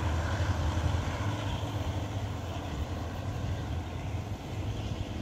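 A passenger train hauled by State Railway of Thailand GEA-class diesel locomotive 4547 moving away down the line: a steady low diesel drone that slowly fades as the train recedes.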